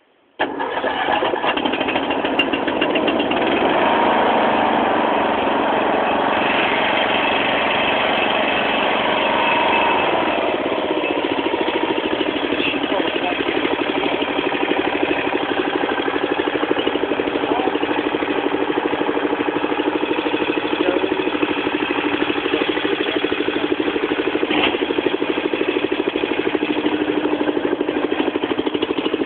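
Ride-on mower's petrol engine catching on the key, started on choke, about half a second in. It runs fast at first, its speed drops about ten seconds in, and it then settles into a steady run.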